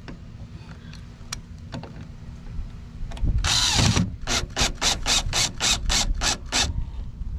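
Cordless drill-driver driving a screw into a car door speaker's mounting ring. About three and a half seconds in it runs for half a second, then goes in about ten short, evenly spaced bursts, roughly four a second.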